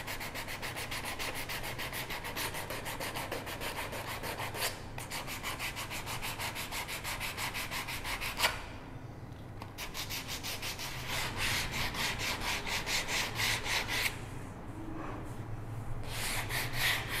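Sandpaper on a hand-held sanding pad rubbed back and forth over a wooden stool seat in quick, even strokes, taking marker lines off the flat top. The strokes stop briefly a few times, and there is a single sharp knock about eight seconds in.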